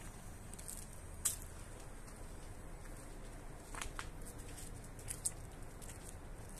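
Quiet outdoor ambience: a steady low rumble with a few scattered sharp ticks and scuffs, the clearest about a second in, around four seconds in, and near the end.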